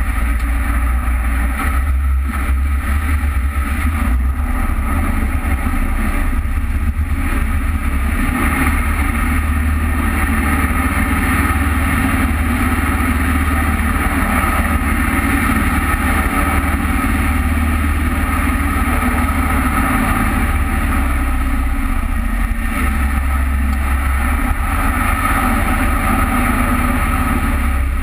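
Jet boat running at speed up a river, its engine and water jet at a steady high drone over a deep low rumble and the rush of churned water.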